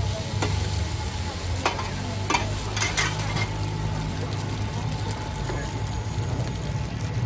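Oil sizzling steadily under hoi tod, a Thai crispy shellfish pancake, frying on a large flat wok, over a low hum. In the first three seconds metal spatulas clink and scrape against the wok a few times as the pancake is turned and pressed.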